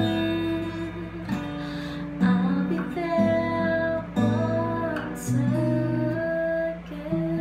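Acoustic guitar played in changing chords, about one change a second, with a woman singing along.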